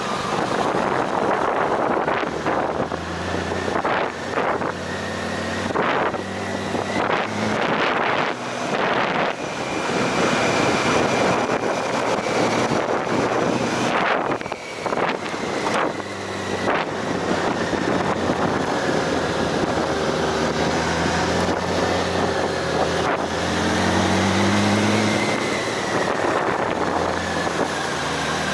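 Motorcycle under way: its engine runs beneath a steady rush of wind on the microphone, with gusts buffeting it now and then.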